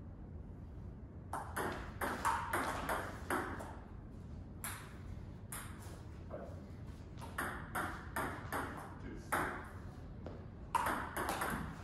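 Table tennis ball being hit back and forth in a rally, sharp ticks of the celluloid/plastic ball on the paddles and on the table top, several a second. The ticks start about a second in and pause briefly near the middle.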